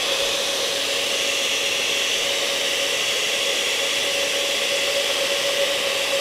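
Countertop blender running steadily, pureeing hot carrot soup: a loud, even motor whine that holds one pitch without a break.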